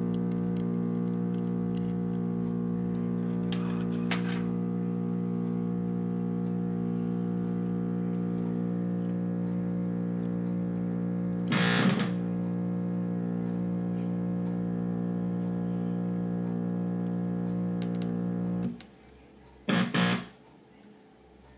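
Breadboarded analog synthesizer oscillator playing through a Yusynth Steiner voltage-controlled filter: a steady, buzzy held tone with many overtones, slightly distorted by a clipping amplifier. There is a brief crackle about halfway through. The tone cuts off suddenly near the end, followed by two short knocks.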